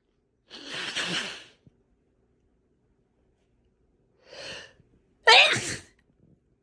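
A person's powerful wet sneezes. The first is a breathy blast about half a second in, followed by a short sharp in-breath near four seconds. Just after five seconds comes the loudest sneeze, with voice in it.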